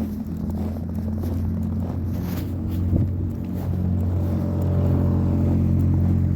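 A car engine running with a steady low hum that grows louder from about two-thirds of the way in.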